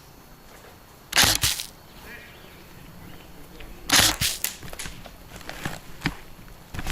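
Airsoft gun firing two short bursts of rapid shots, about a second in and again about four seconds in, with a few scattered single cracks after.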